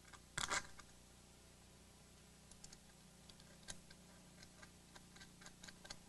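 Small metal clicks and clinks of nuts and lock washers being handled and threaded by hand onto the bolts of an upper ball joint: a louder clatter about half a second in, then a run of light, irregular ticks from about two and a half seconds on.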